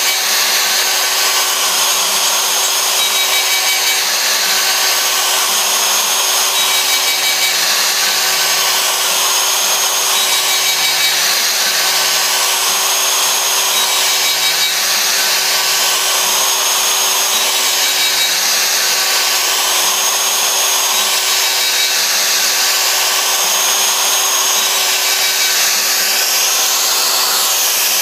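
CNC router spindle running steadily with a half-inch straight-fluted plunge bit taking a radial finishing pass in plywood. Under a constant whine, the cutting noise rises and falls in an even cycle about every two seconds as the bit sweeps around the pocket.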